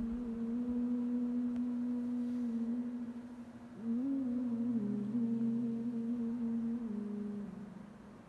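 A wordless voice hums a slow melody in long held notes. It rises a step about four seconds in, then settles on a lower note and fades near the end.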